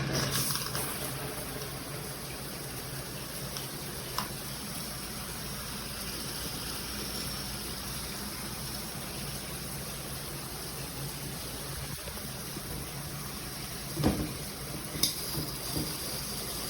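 Water spraying steadily from a filtered shower head, an even hiss, with a few short knocks near the end.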